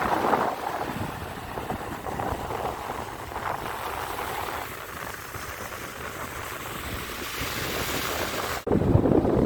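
Sea waves washing onto a beach, with wind buffeting the microphone. About eight and a half seconds in, an abrupt cut switches to louder surf and wind.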